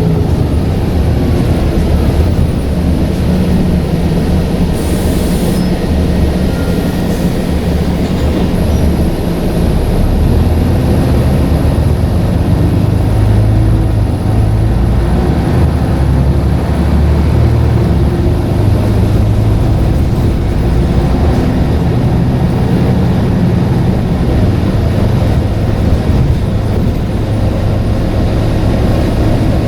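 Scania N94UD double-decker bus's diesel engine and drivetrain running under way, heard from on board as a steady rumble whose engine note rises and falls with speed. A brief high hiss comes about five seconds in.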